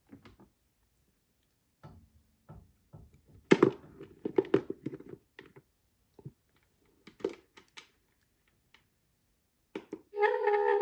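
Scattered clicks and knocks of a small plastic electronic unit being handled. Near the end, the unit's Cylon eye warble sound effect starts playing: a steady, buzzy electronic tone.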